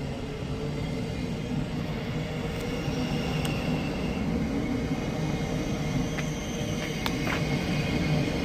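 Thameslink Class 700 electric multiple unit running past along the platform: a steady rumble of wheels and running gear with a low hum, and a high electric whine that fades after about four seconds. A few faint clicks come near the end.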